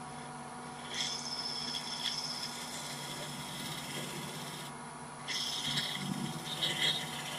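A large square woodturning scraper shearing a light finishing cut on a wooden canister spinning on a lathe: a scraping hiss with a thin high singing tone. It comes in two passes, with a short break about five seconds in, over the steady hum of the running lathe.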